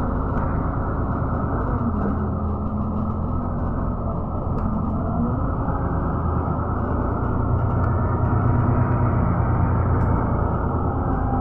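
Steady low rumble of a moving road vehicle heard from inside the cabin: engine drone and road noise, its pitch shifting a little as the vehicle drives on.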